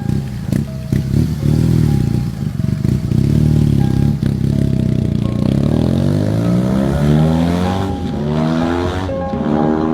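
Boxer flat-twin motorcycle engine revving, its pitch rising and falling about twice, then climbing steadily as it accelerates. Background music plays underneath.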